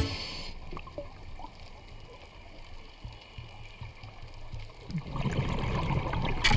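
Underwater ambience picked up by a camera in its housing: a low, uneven rumble of moving water with faint small clicks, swelling into a louder rush of water noise about five seconds in, with a sharp click at the very end.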